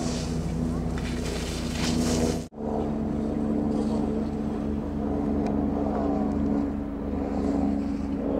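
A steady, engine-like mechanical drone with wind on the microphone. It drops out for an instant about two and a half seconds in, then carries on at a slightly lower pitch.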